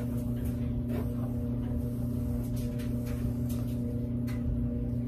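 Soft swishing strokes of a brush being pulled through a wig's hair, roughly one every second, over the steady hum of a washer and dryer running.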